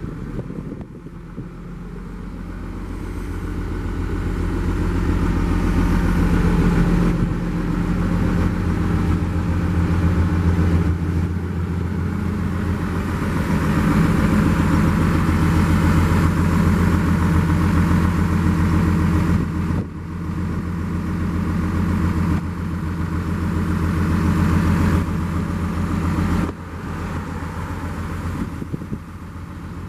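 Daewoo DH130 excavator's diesel engine running. It builds up over the first several seconds, then drops back suddenly twice in the latter part.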